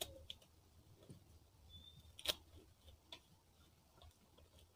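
Banana-leaf wrapping being unfolded by hand: a few faint, scattered crackles of the leaf, the sharpest one a little over two seconds in.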